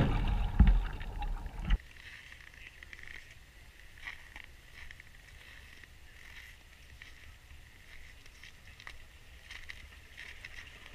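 Underwater rush and churn of water as hatchery cutbow trout pour out of a stocking pipe beneath the ice. It is loud and cuts off suddenly about two seconds in. After that come faint, scattered crunches and rustles of boots on snow and on a fabric fish chute.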